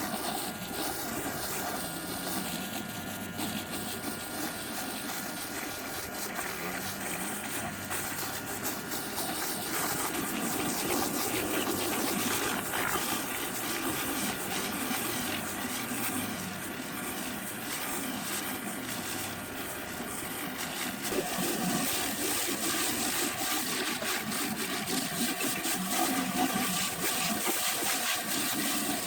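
Pressure washer floor surface cleaner, its two nozzles spinning under the hood, spraying high-pressure water onto the ground: a steady rushing hiss, with the hum of the 3000 PSI electric pressure washer's pump. The sound shifts a little about two-thirds of the way through.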